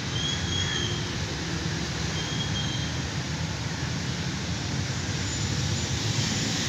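Steady low rumbling background noise, with two brief faint high chirps, about half a second in and again a little after two seconds.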